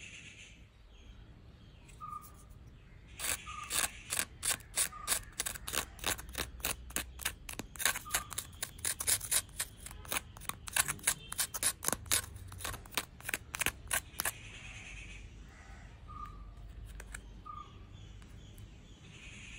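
Rapid run of sharp plastic clicks and taps, about two or three a second, as a plastic ice-cream cup and its clear dome lid are handled, with a wooden spoon against the cup; faint short chirps now and then.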